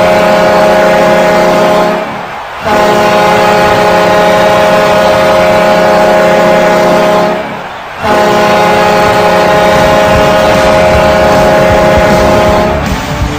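Chicago Blackhawks goal horn, a deep air horn sounding long blasts of about five seconds each, with two short breaks, signalling a Blackhawks goal. Music begins near the end.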